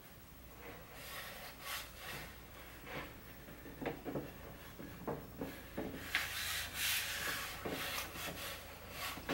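Palms rubbing and smoothing carbon-fibre vinyl wrap over a plastic center console trim piece in repeated short strokes, with the piece shifting against a wooden workbench. The strokes come thicker in the second half.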